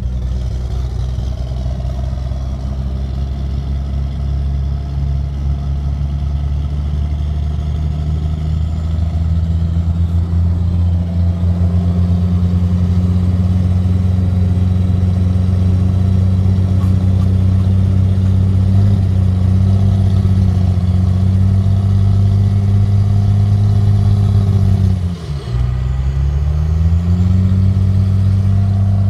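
1994 Dodge Ram's Cummins 12-valve 5.9-litre inline-six diesel, heard at the tailpipe, running at a steady idle that rises slightly after several seconds. Near the end the engine speed sags sharply and climbs back up over a couple of seconds.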